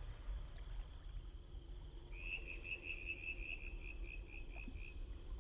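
Outdoor ambience with animal calls: a steady faint high drone, and from about two seconds in a run of about a dozen quick chirps, about four a second, over a low rumble.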